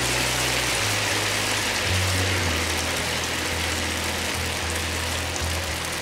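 Hot oil sizzling steadily as batter-coated bananas deep-fry in a pan on their second frying, over background music with a low bass line.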